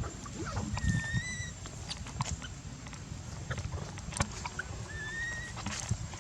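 Baby monkey crying: two thin, high-pitched cries that rise slightly, one about a second in and another about five seconds in. Clicks, knocks and rustling from handling run underneath.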